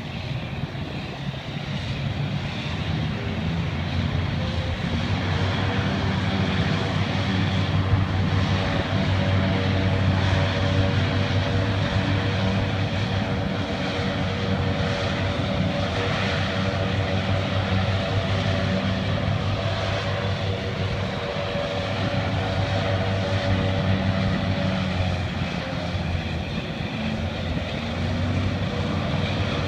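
Canadian Coast Guard hovercraft running on the river: the steady drone of its engines and air propellers, a low hum with a buzzing tone above it, growing louder over the first few seconds.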